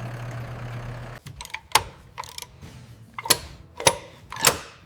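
A vehicle engine idling with a steady low hum, shut off just over a second in, followed by a string of separate sharp metallic clicks and knocks.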